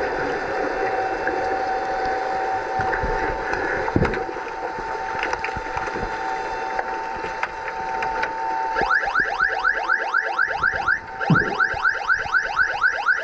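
Underwater hockey referees' underwater sounder going off as rapid repeating rising whoops, about five a second, from about nine seconds in, signalling a stop in play. Before it, a steady hum and scattered knocks of play carry through the water.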